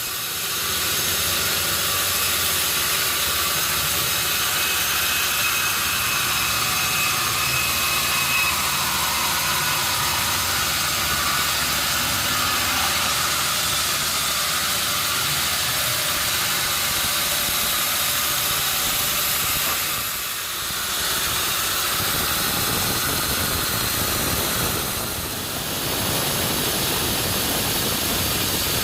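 Sawmill machinery running: a steady, hissing mechanical noise of the saw and its motor, with two brief dips about twenty and twenty-five seconds in.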